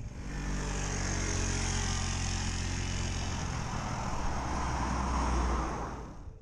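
Motorbike engine running steadily under way, with a steady hiss of wind and road noise over it. The engine swells a little about two-thirds of the way in, then fades and cuts off suddenly.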